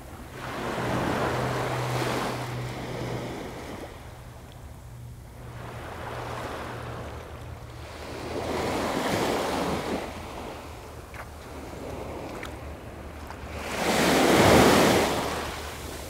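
Gulf of Mexico waves breaking and washing up the sand in three surges several seconds apart, the last one the loudest, with a faint low hum underneath.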